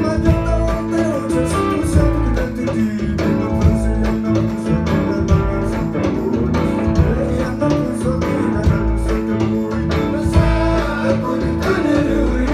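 Live Tuareg desert-blues band playing: interlocking electric and acoustic guitars over bass and a hand drum, with voices singing.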